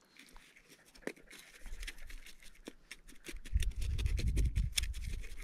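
Pinpointer probe and hands scratching and scraping through dry desert soil in a freshly dug hole, many small gritty clicks, with no alert beep because it finds no metal. A low rumble comes in a little past halfway.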